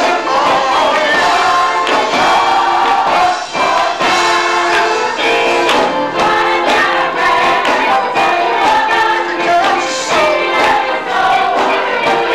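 Gospel choir singing, loud and without a break.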